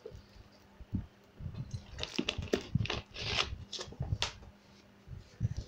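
A person drinking water from a plastic bottle: a string of short, irregular gulps and small handling noises from the bottle.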